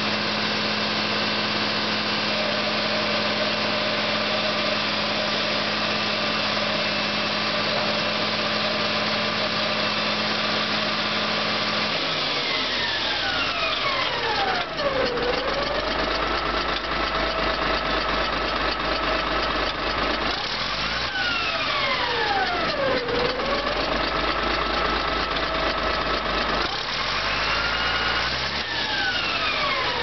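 Caterpillar D7G crawler dozer's diesel engine idling steadily, then from about twelve seconds in running deeper and harder, with a high whine that sweeps down in pitch three times and climbs once near the end.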